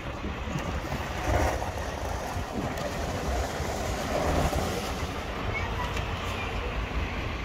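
Steady road noise of a motorcycle being ridden: wind rush over the engine running, with no clear changes in pace.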